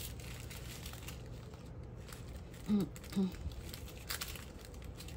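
Plastic crinkling of small bags of diamond-painting drills being handled, with a few light clicks. A short two-part murmur from a woman's voice comes a little under three seconds in.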